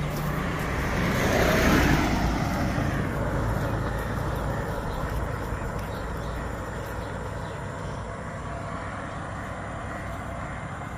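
A road vehicle passing close by: its noise swells to a peak about two seconds in and fades away, leaving a steady hum of distant road traffic.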